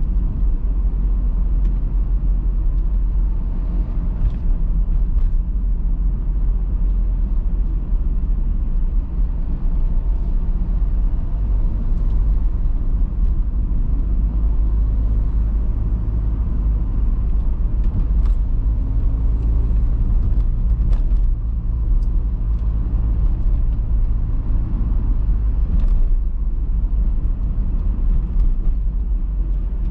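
Car driving along a suburban street: steady low road and engine rumble.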